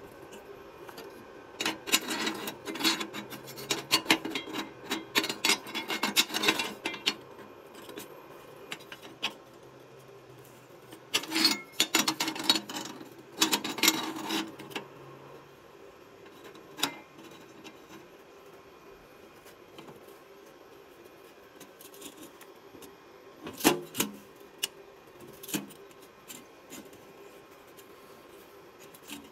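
Square steel tubing sliding and scraping through the steel brackets of a homemade tube-alignment jig on a steel bench, in two spells of rattling and clinking metal. These are followed by a few single metal knocks.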